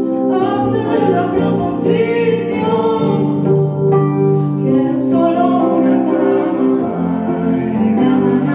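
A Sephardic Ladino folk song performed live: sung voices held on long notes over instrumental accompaniment.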